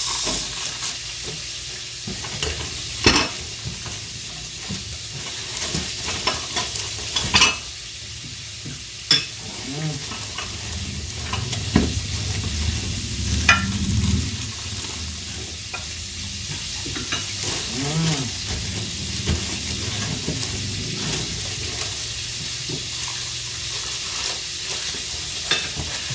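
Dishes being unpacked and handled: a few sharp knocks of plates and bowls over a steady hiss.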